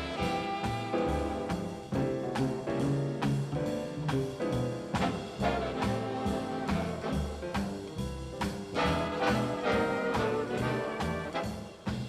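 Background music: jazz with brass and a steady beat.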